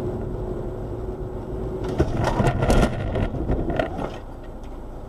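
Car collision picked up by a dashcam inside the car. Steady road noise, then about two seconds in a sudden crash, followed by about two seconds of crunching and scraping metal before it settles to a quieter noise.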